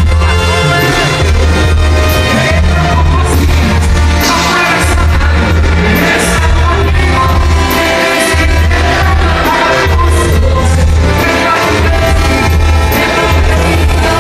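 Loud live banda music: tuba bass line pulsing under brass and drums, with a lead singer.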